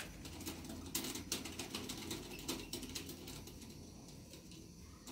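Light clicking and rattling of metal kitchenware being handled, with a few sharper clicks in the first second and a half and quieter rattling after.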